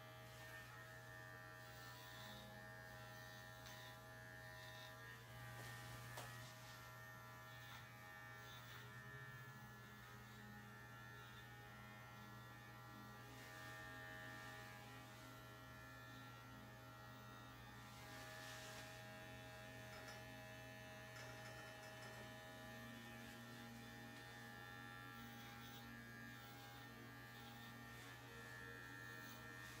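Electric dog grooming clippers running with a faint, steady hum.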